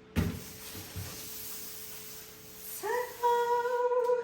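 A single knock, then a soft hiss. About three seconds in, a woman's voice hums a short note that slides up, then a louder held note lasting about a second.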